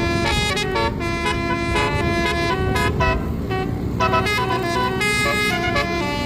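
A bus's multi-tone 'telolet' air horn playing a quick tune of changing notes, over a steady low rumble, with a short break in the melody about three seconds in.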